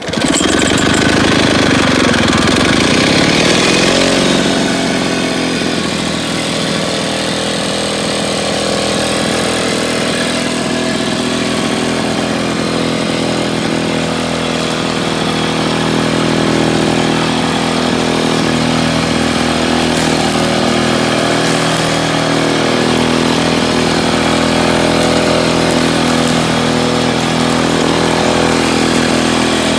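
1957 Jacobson rotary lawnmower's two-stroke engine catching on choke and running. Its speed swings up and down for the first four seconds or so, then settles into a steady run.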